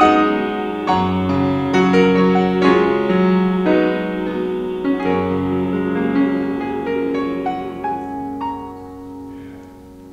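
Grand piano played solo: closing phrases and chords, then a final chord left to ring out and fade from about eight seconds in.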